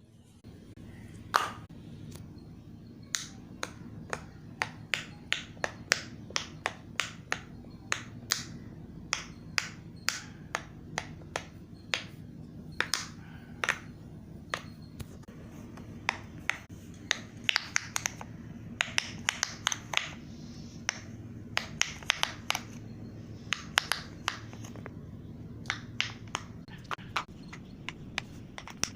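Silicone pop-it fidget toy bubbles being pressed, a long run of sharp pops a few a second, coming quicker and closer together a little past the middle. A steady low hum runs underneath.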